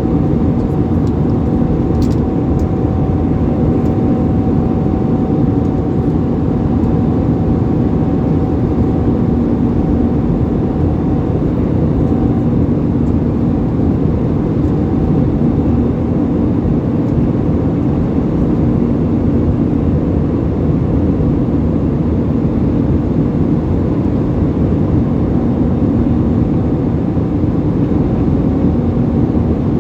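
Airbus A320 cabin noise in flight: steady engine and airflow noise, with a faint steady hum on two pitches.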